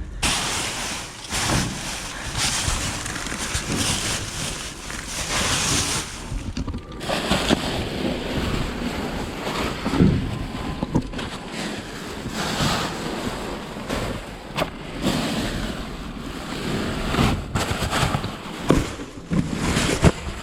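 Rummaging through a dumpster: plastic trash bags rustling and crinkling as items are pulled and shifted, with scattered knocks and thumps.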